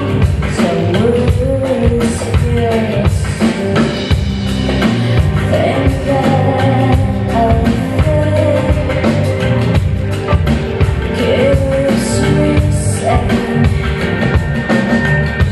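A band playing live: a woman singing a melody into a microphone over a drum kit and bass-heavy accompaniment.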